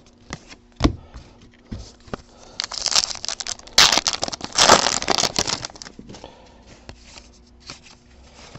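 Foil wrapper of a trading-card pack crinkling and tearing as the pack is ripped open, loudest in the middle, after a few light clicks of cards being handled.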